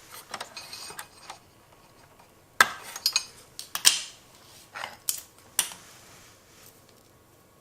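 Irregular clicks and clinks of small metal parts and tools being handled, with a cluster of sharper knocks in the middle.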